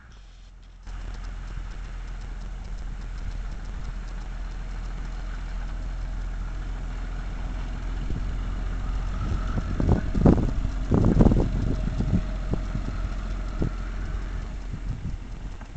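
Engine of a 1932 International Harvester A5 truck running as the truck drives past across grass, growing louder to its peak about two-thirds through, then fading.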